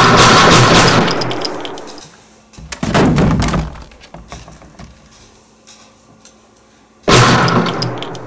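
Three loud gunshot-like bangs with crashing tails that die away over a second or two: the first already sounding at the start, the second about three seconds in, the third near the end.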